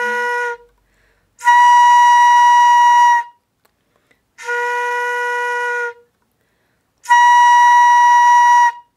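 Danso, a Korean end-blown bamboo flute, playing the note im in alternating octaves: a low im ending about half a second in, then high im, low im and high im, each held about a second and a half with short gaps between. The low im is blown softly and the high im, an octave above, is blown harder and sounds louder.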